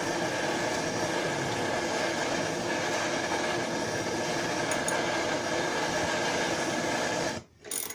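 Torch burning with a steady rushing noise while heating a bolt to break down its Loctite; it stops abruptly near the end.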